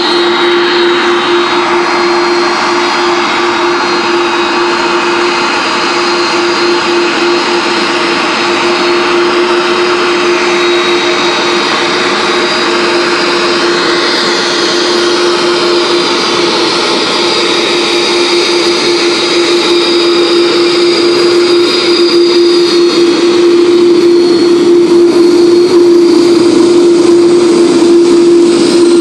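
FedEx McDonnell Douglas MD-11 trijet's jet engines running at taxi power as it moves past: a steady low hum with a high whine over a rushing noise, growing a little louder in the last several seconds.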